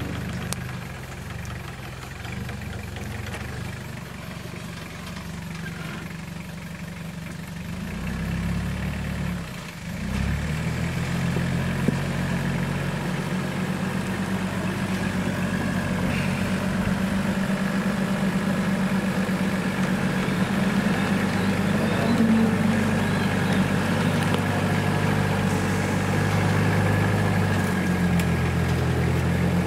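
Toyota Hilux N60 pickup's engine running at low revs as the truck crawls over rocks, growing louder about ten seconds in as it comes closer.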